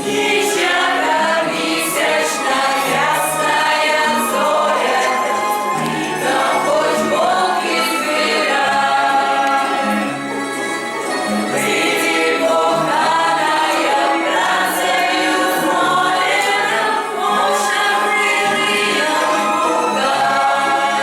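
A group of voices singing a song over an instrumental backing with a bass line and light percussion.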